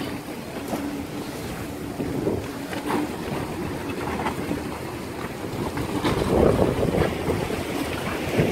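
Squall wind gusting hard against the microphone, with waves and surf splashing, and scattered knocks. The wind swells loudest about six to seven seconds in.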